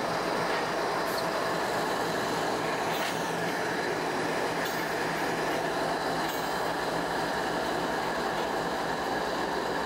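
Canadian National GE diesel-electric freight locomotives sitting at idle, their engines and cooling fans giving a steady, even drone.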